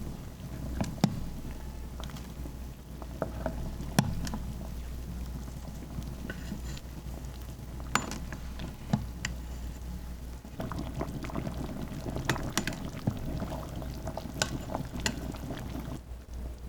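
Kitchen liquid sounds, like bubbling or pouring, with scattered sharp clicks and knocks of cookware. A low hum runs underneath.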